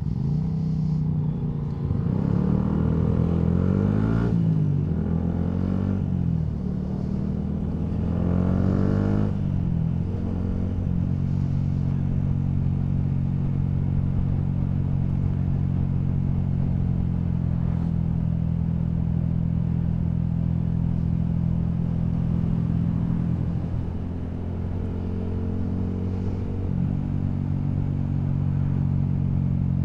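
Yamaha MT-125's single-cylinder engine through a Scorpion Serket carbon full exhaust system, heard from the rider's seat. It revs up and down through the gears for the first ten seconds or so, then holds a steady note, easing off and picking up again a little past twenty seconds.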